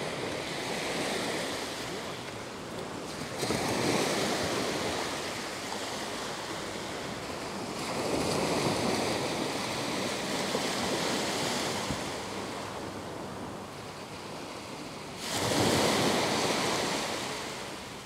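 Small waves breaking and washing up the sand at the water's edge, coming in several surges of rushing water, the last and loudest starting suddenly near the end.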